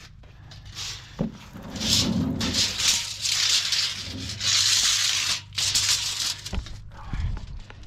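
Irregular scraping and rubbing noises in several stretches, starting about two seconds in, over a faint steady low hum.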